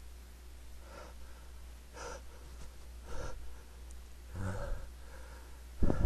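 A man breathing in sharply several times, gasps about a second apart, building up to a sudden loud sneeze near the end.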